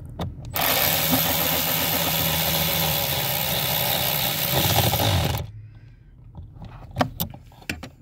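Cordless power ratchet running in one steady burst of about five seconds, driving down the 7 mm bolt on a brake pedal position sensor, then stopping abruptly. A few light clicks follow near the end.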